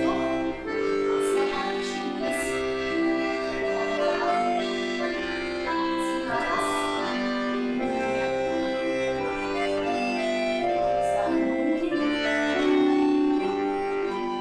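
Accordion playing a steady folk-dance tune as barre accompaniment, with sustained chords over a bass line.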